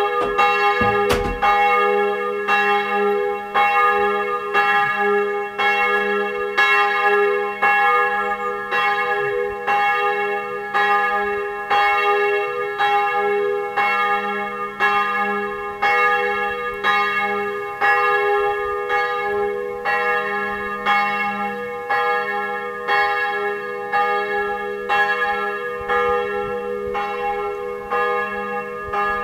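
Church bells ringing, struck in a steady rhythm about once a second, each stroke ringing on into the next.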